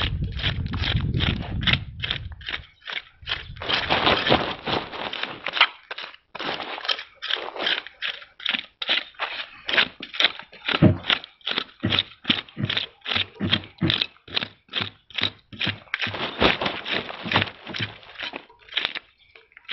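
A blade scraping the big coin-sized scales off a large carp-family fish, in quick rasping, crunching strokes, about two to three a second.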